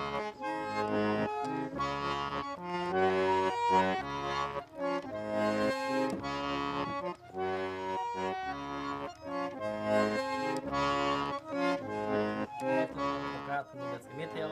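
Accordion playing a lively traditional dance tune, a melody over a regular bass beat.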